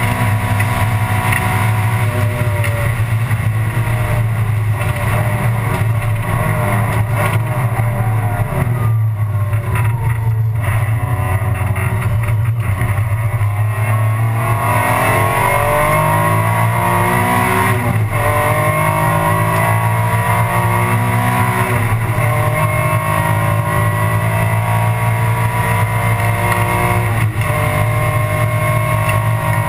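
Alfa Romeo 156 GTA race car's 3.2-litre V6 heard from inside the cockpit at racing speed, over a steady low drone. The engine pitch falls for several seconds as the car slows, then climbs again from about halfway, with upshifts breaking the rise twice.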